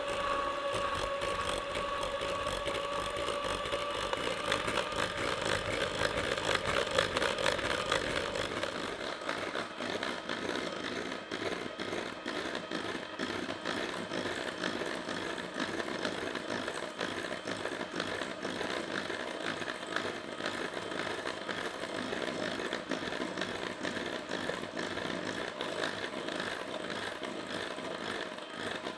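Electric hand mixer running at medium speed, its twin beaters whipping egg whites into meringue in a stainless steel bowl: a steady motor whir with the beaters rattling against the bowl. The motor's whine is clearest for the first eight seconds or so, after which the rattle of the beaters in the thickening foam takes over.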